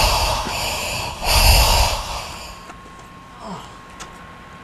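Heavy panting breaths close to the microphone: two loud, hoarse rushes of air, the second shorter. From about two and a half seconds in it is much quieter, with a faint steady whine and a few light clicks.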